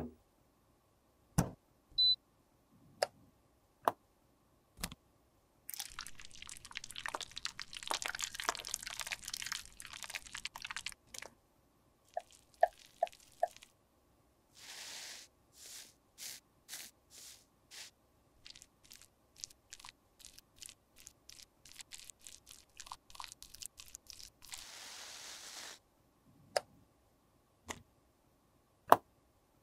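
Cosmetics being handled and worked by hand. Sharp clicks and taps come first, then several seconds of crunchy scraping. After that comes a run of short strokes about two a second, a brief hiss near the end, and a few more clicks.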